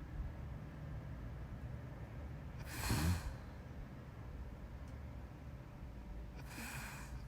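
Sleeping person breathing heavily in a slow rhythm: a snoring breath with a low rattle about three seconds in, and a breathy exhale near the end.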